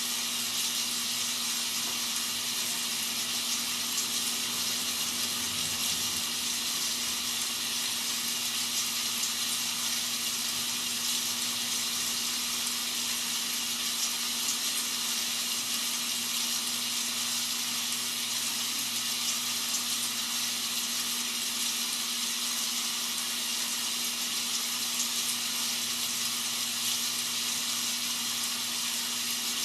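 Rain sound effect: a steady, even hiss of falling rain, used as white noise, with a faint steady low hum underneath.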